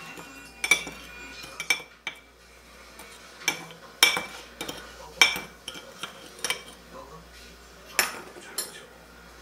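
A metal spoon stirring and scraping sugar and cinnamon in a ceramic baking dish, clinking sharply against the dish at irregular intervals about a second apart.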